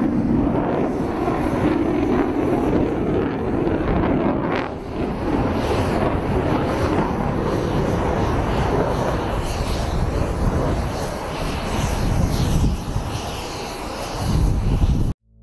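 Jet engines of a Chengdu J-20 stealth fighter flying low with its landing gear down: a steady, loud roar with a deep rumble. It cuts off abruptly just before the end.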